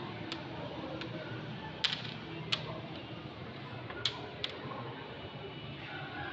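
Dama (checkers) pieces clicking down on the board as moves are played: six sharp, separate clicks over the first four and a half seconds, the loudest about two seconds in.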